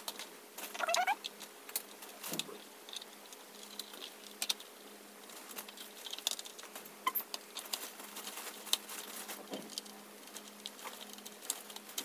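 Plastic clicks, taps and rattles from a ring light and its stand being handled and fitted together. About a second in there is a short high whine that rises in pitch.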